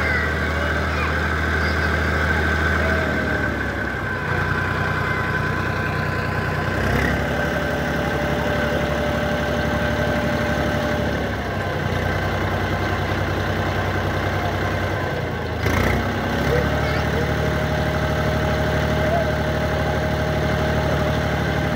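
Eicher 480 tractor's diesel engine running steadily while its hydraulic lift tips the loaded trailer bed up to dump soil. The engine note shifts a few times along the way.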